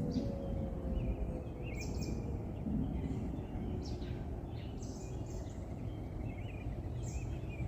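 Distant outdoor tornado warning siren winding down, its tone sliding slowly lower and fading out about halfway through. Birds chirp throughout over a steady low outdoor rumble.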